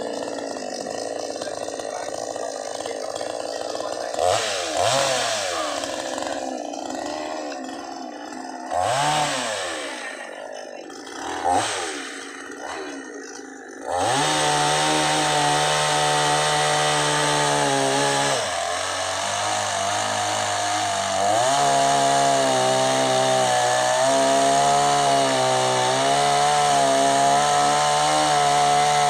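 Ogawa two-stroke petrol chainsaw idling with a few short blips of the throttle, then held at full throttle from about halfway as it cuts through a tree log. The engine's pitch sags for a few seconds in the cut, then climbs back and holds.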